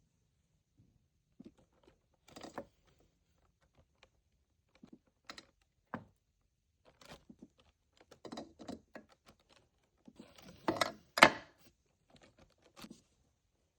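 Irregular clicks, taps and knocks of objects being handled, with a louder cluster of knocks about eleven seconds in.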